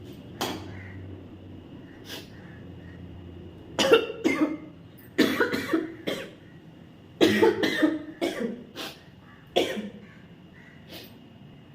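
A person coughing in fits, single coughs at first, then runs of three or four quick coughs, brought on by the pungent smoke of dried red chillies roasting.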